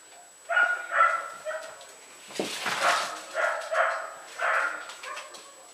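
F1b parti labradoodle puppies yipping and whimpering: a run of about five short calls in quick succession.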